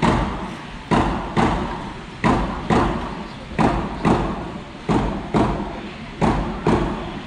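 Hand drum beaten in a steady two-beat rhythm, a pair of strokes about every 1.3 seconds, echoing in a large hall.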